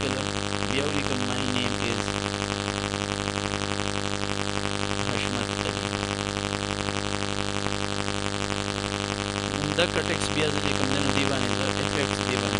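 Steady electrical hum with a buzzy stack of overtones, with a faint voice murmuring briefly near the start and again about ten seconds in.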